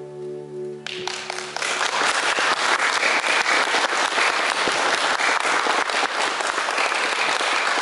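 The last held chord of the band's song dies away, and about a second in an audience breaks into applause that swells and keeps going.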